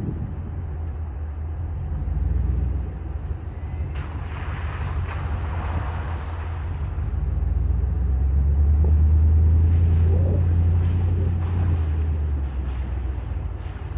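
Ford Raptor pickup truck driving off-road: a steady low engine rumble that grows louder about eight seconds in, with a few seconds of rushing hiss starting about four seconds in.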